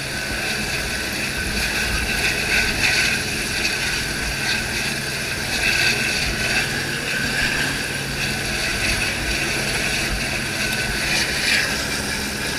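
Helicopter hovering close overhead: a steady turbine whine with the rotor's beat underneath, loud and unbroken.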